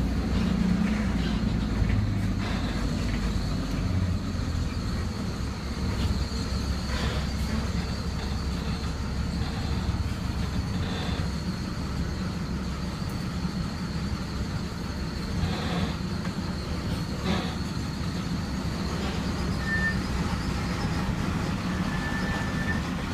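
Bus diesel engine running at low speed, heard inside the cabin: a steady low rumble with occasional knocks and rattles, and two short high squeaks near the end.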